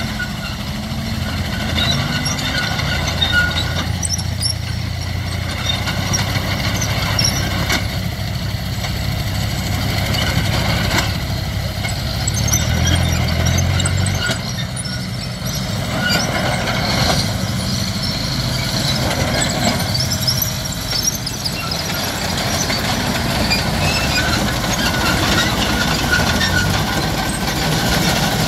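Renault FT light tank driving, its engine running steadily under scattered high squeals and clanks from the steel tracks and running gear.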